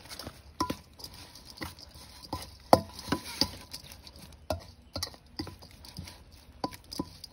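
Metal spoon stirring minced pork in a stainless-steel bowl: irregular scrapes and clinks of the spoon against the bowl, each followed by a brief ring from the bowl, the loudest clink about two and a half seconds in.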